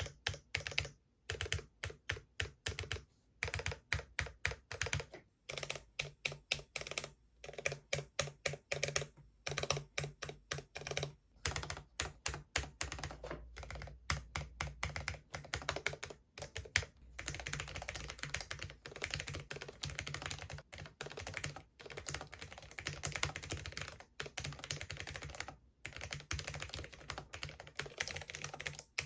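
Cherry MX 10.0 LP mechanical keyboard with Cherry MX Low Profile Red linear switches being typed on in a test: fast runs of key clicks in bursts, with short pauses between them.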